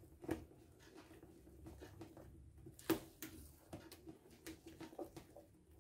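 Faint, irregular soft taps and squelches of a spatula stirring thick cake batter in a plastic bowl.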